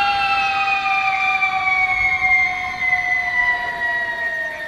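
One long held electric-guitar note, sliding slowly and steadily down in pitch like a whammy-bar bend.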